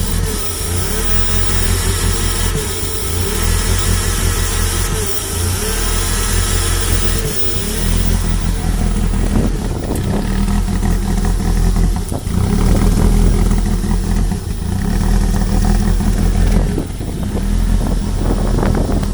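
Toyota MR2 SW20's 3S-GE BEAMS four-cylinder engine running at a rough idle, with a steady low note and a wavering, uneven level. The roughness persists on fresh spark plugs, with vacuum leaks ruled out by the owner.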